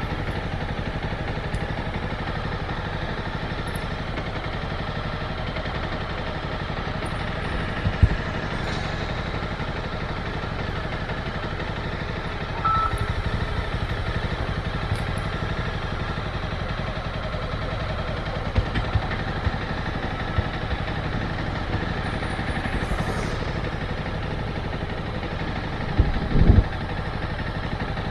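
Motorcycle engine running steadily at low revs, with a few short knocks, the loudest cluster near the end.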